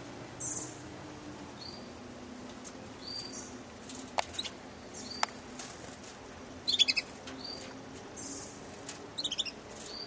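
Young Russian canaries chirping: short high calls scattered throughout, with a quick burst of rapid loud notes about seven seconds in and another near the end. Two sharp clicks a second apart sound around the middle.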